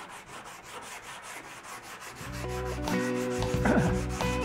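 Sanding block with 80-grit paper rubbed quickly back and forth over body filler and epoxy primer on a car's steel fender, an even rasping rhythm. Background music comes in about halfway and is louder than the sanding.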